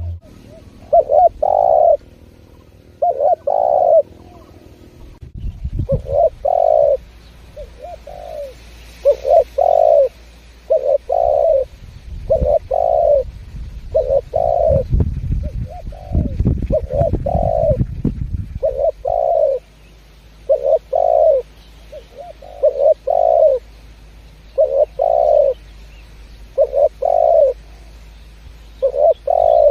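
Spotted dove (derkuku) singing: short two-part coos repeated about every two seconds. A low rumble runs under the song through the middle.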